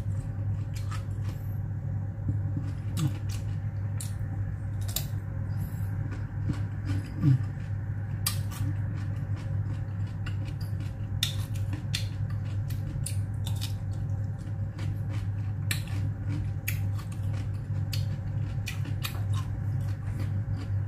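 Crisp crunches and clicks of a person biting and chewing raw cucumber sticks close to the microphone, scattered irregularly over a steady low hum.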